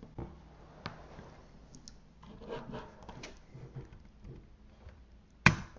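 Faint handling sounds at a computer desk: scattered light clicks and rubbing, with one sharp, loud click about five and a half seconds in.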